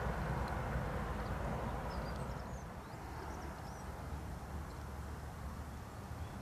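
Outdoor background noise: a steady low hum of distant road traffic, louder for the first couple of seconds and then easing, with a few faint bird chirps around the middle.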